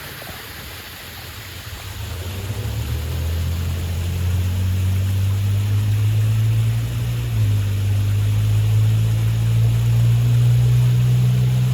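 Steady rush of a waterfall, with a low engine drone coming in about two seconds in and growing louder until it is the loudest sound.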